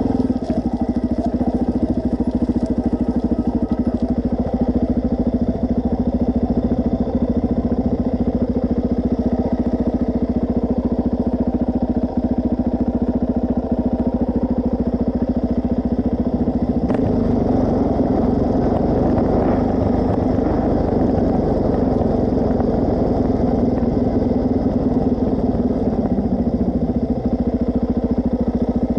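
Suzuki DR-Z400S single-cylinder four-stroke engine running steadily while the bike is ridden slowly, heard from a camera mounted on the bike. From about 17 seconds in its sound grows fuller and rougher.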